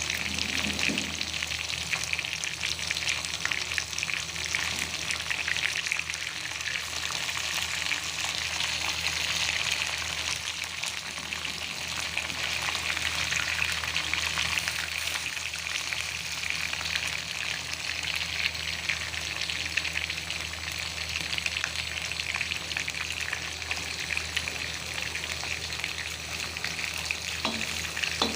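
Food frying in hot oil in a pan: a steady sizzle with dense crackling.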